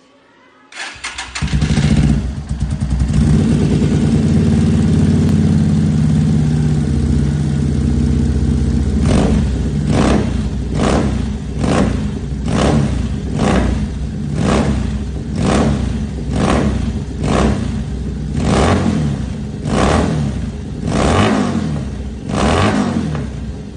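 Buccaneer 250i V-twin motorcycle with a short exhaust starting up about a second in and idling steadily. From about nine seconds in it is revved in quick throttle blips, about one a second.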